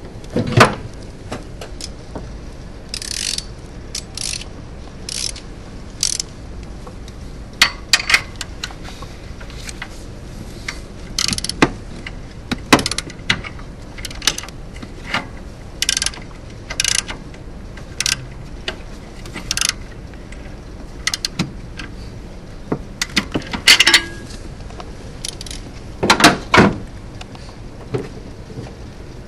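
Hand ratchet clicking in short, irregular runs, mixed with sharp clinks of metal tools, as a back pressure adapter is tightened into the exhaust manifold's O2 sensor port. The loudest clusters of clicks come near the end.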